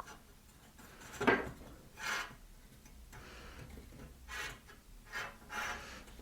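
Pencil drawing short scratchy lines on a piece of wood along a ruler, about six strokes.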